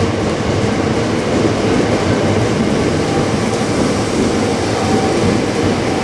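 Tokyo Metro 8000 series electric train running past a station platform: a steady, loud running noise of its wheels on the rails and its underfloor equipment.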